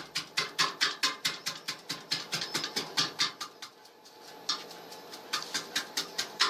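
Rapid, regular clicking, about four clicks a second, with a pause of roughly a second and a half in the middle.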